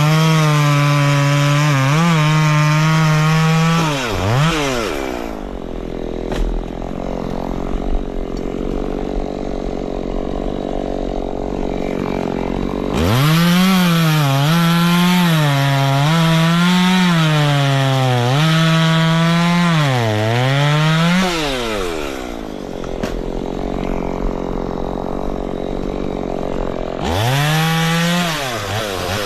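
Chainsaw at full throttle cutting wood, its pitch dipping and recovering as the chain bites. It drops back to idle about four seconds in, revs and cuts again for about eight seconds from the middle, idles, then revs up once more near the end.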